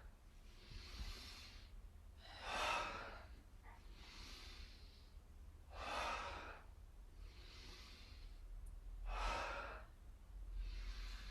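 A person breathing slowly and deeply in a steady rhythm, paced to a seated yoga spinal flex. A full in-and-out cycle takes about three and a half seconds, with louder breaths and softer ones taking turns, three louder ones in all.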